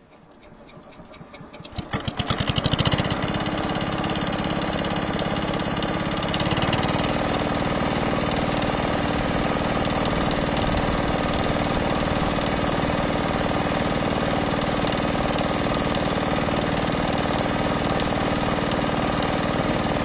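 Two-wheel walk-behind tractor's single-cylinder diesel engine starting up, firing in a quick run of beats about two seconds in, then running steadily. It drives a belt-driven circular saw blade spinning free with no wood being cut. Its note settles around six and a half seconds in.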